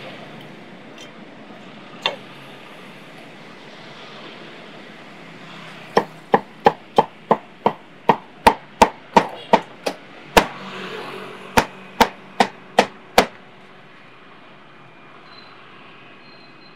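Cleaver chopping roast pork on a thick wooden chopping block: a single chop about two seconds in, then a quick run of about a dozen chops at about three a second, a short pause, and five more.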